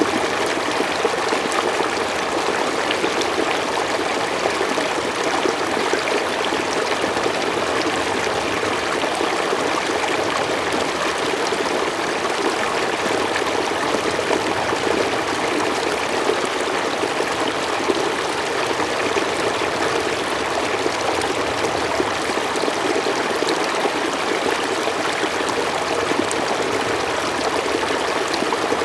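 Mountain stream flowing steadily over rocks, a continuous rushing and trickling of water without pause or change.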